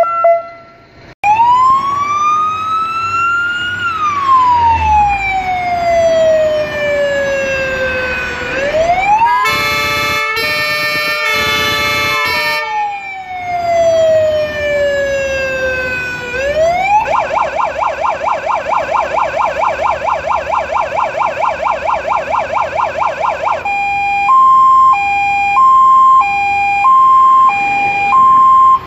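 Electronic siren of an Iveco EuroFire/Magirus turntable-ladder fire engine cycling through its modes. It plays a slow wail rising and falling, three short horn blasts, another long wail, a fast yelp, then a two-tone hi-lo for the last few seconds. A different two-tone siren cuts off about a second in.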